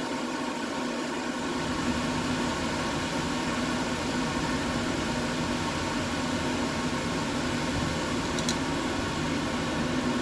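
Steady mechanical hum of a running machine or engine in the background, even throughout, with one short click about eight and a half seconds in.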